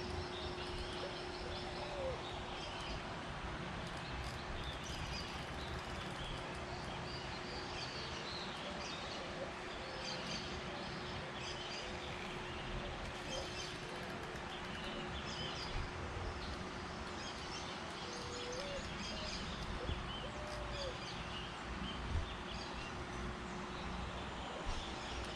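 Many birds chirping and calling over a steady background hiss, with a faint steady hum underneath.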